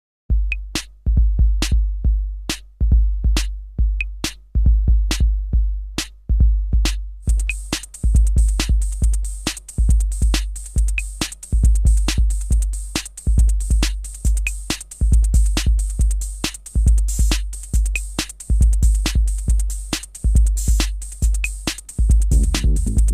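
Electronic dance music with a drum-machine beat: deep bass kicks and sharp regular hits, with a steady hi-hat layer joining about seven seconds in.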